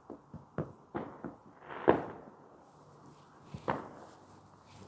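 Small fireworks going off: a few irregular sharp pops, the loudest about two seconds in, just after a brief rising hiss, and another near the end.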